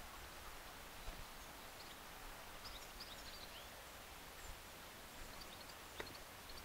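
Faint outdoor background hiss with a low rumble. A few short, high bird chirps come around the middle, and a few single sharp ticks are heard: one about a second in, one past four seconds and one near the end.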